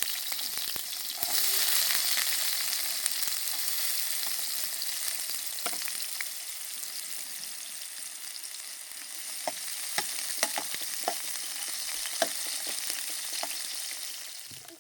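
Dense, steady hiss with scattered sharp crackles and pops, cutting off suddenly at the end.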